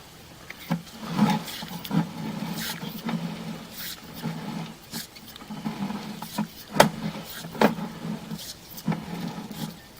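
Sewer inspection camera's push cable being worked through a drain line: irregular clicks and knocks, the sharpest about seven seconds in, over a steady low hum.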